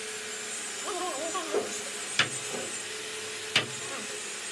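Two sharp clicks about a second and a half apart as a drill and hinge screws are handled at a teak frame's brass hinge, over a steady low hum and hiss.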